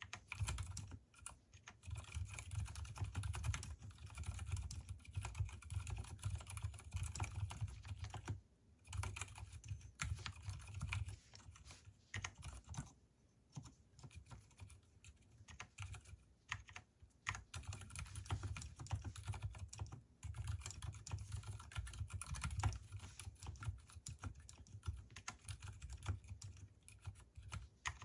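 Fast continuous typing on a mechanical keyboard with Gateron silent brown switches, unlubricated, with lubed stabilizers: a dense run of deep, damped keystrokes with short pauses about 8 seconds in and around 13 seconds.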